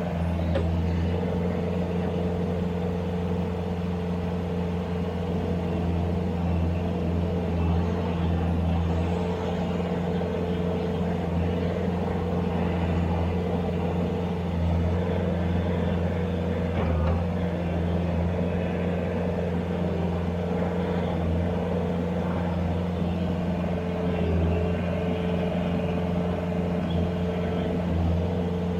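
Skid steer loader's engine running steadily under work, a continuous low drone with only slight rises and dips in level.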